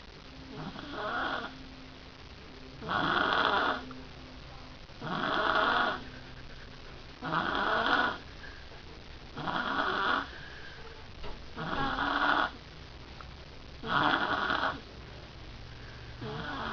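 A girl snoring in her sleep, one snore on each breath, about one every two seconds.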